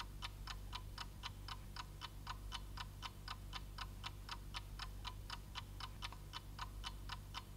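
A clock ticking steadily, about four ticks a second, over a faint low hum.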